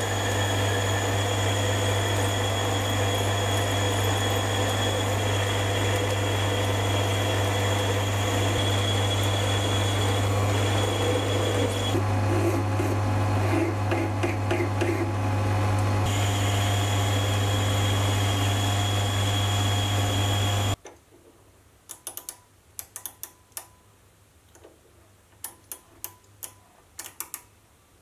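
Metal lathe running steadily with a low drone and whine while turning a part, with a file stroked against the spinning part for a few seconds around the middle. About three-quarters of the way through the lathe stops abruptly, and a string of light sharp clicks follows as a micrometer is set on the part.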